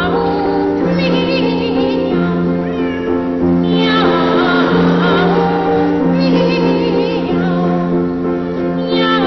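Boy treble soloist singing a comic cat song in short phrases with vibrato, over sustained piano chords.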